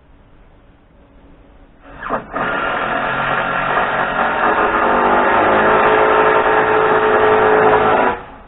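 A motor-driven machine starts up, runs steadily for about six seconds with a slight change in pitch partway through, then cuts off.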